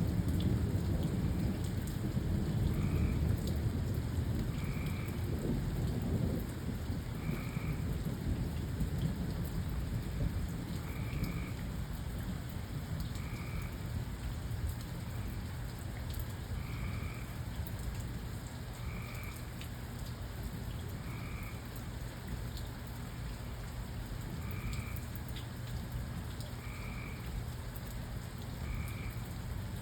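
Steady rain falling, with a deep thunder rumble that is loudest at the start and fades away over the first several seconds. A short call repeats about every two seconds throughout.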